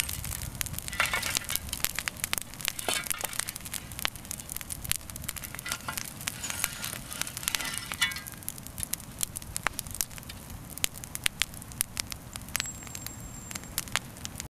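Pile of tree branches burning: irregular sharp pops and snaps of burning wood over a low steady rush of fire, the pops louder and more frequent near the end.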